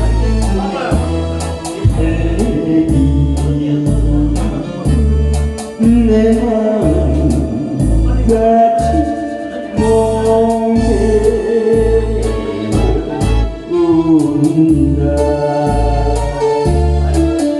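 Music with a steady, regular bass beat under a sustained melody line.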